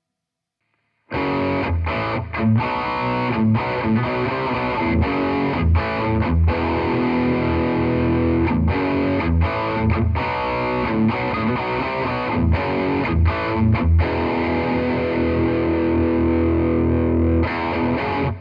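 Electric guitar played through preset 6C of a Playwell Tank-G effects unit, a distorted tone: a chord riff with frequent short stops, starting about a second in and cutting off abruptly at the end.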